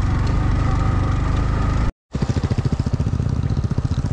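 Yamaha MT-15's single-cylinder engine running as the motorcycle rides slowly in second gear over a muddy dirt track. The sound cuts out briefly about halfway, then returns as a steady train of low, evenly spaced firing pulses.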